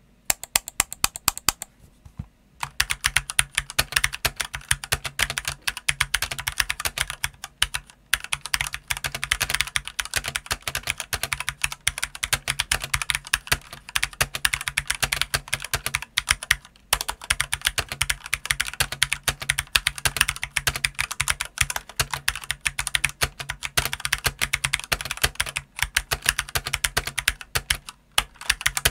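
Stock Eyooso K-620 hot-swap TKL mechanical keyboard with Outemu Red linear switches and stock PBT OEM-profile keycaps, typed on steadily. A quick run of separate key presses comes first, then a short pause about two seconds in, then fast continuous typing with brief pauses about eight and seventeen seconds in.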